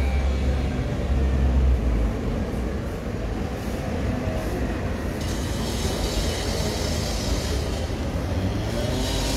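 A van ambulance drives past with a low engine rumble that fades out about two seconds in. A steady rushing outdoor noise carries on after it.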